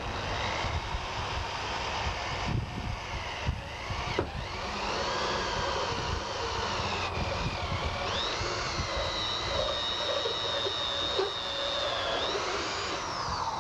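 Power drill running a 3/4-inch hole saw through the sheet-metal roof of a pickup cab. The motor whine's pitch rises and falls with the cutting load, jumps higher about eight seconds in and holds steady, then winds down near the end.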